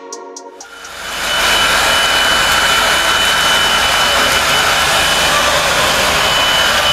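Hand-held hair dryer blowing, coming up to full power about a second in and then running steadily: an even rush of air with a thin high whine.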